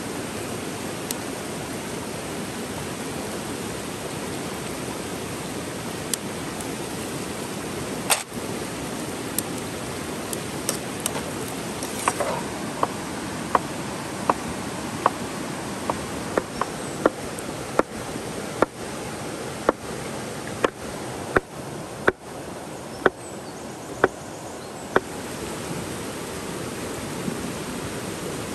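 Knife chopping vegetables on a wooden board, sharp knocks about once a second through the middle of the stretch, over the steady rush of a river.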